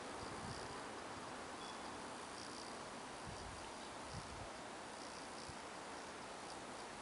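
Faint, steady outdoor background hiss, with faint high-pitched chirring that comes and goes several times.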